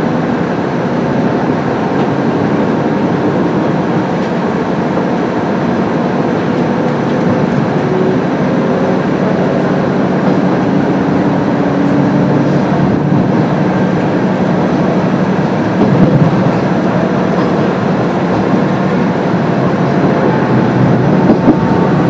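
KiHa 350 diesel railcar running under power as it pulls away from a station: a steady engine and rail rumble, slowly getting louder, with a few wheel knocks over the track in the second half.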